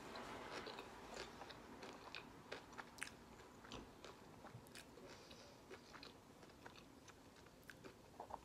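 Faint chewing of a mouthful of fried chicken sandwich dipped in sauce: soft, scattered mouth clicks.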